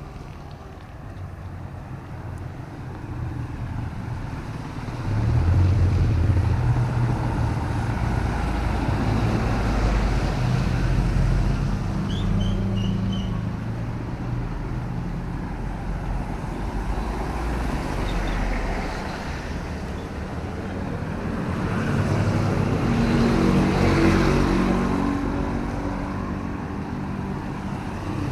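Motor traffic on a rain-wet city road: engines rumbling and vehicles passing with tyre noise, louder from about five seconds in and swelling again as a vehicle passes near the end. A few faint high chirps sound briefly in the middle.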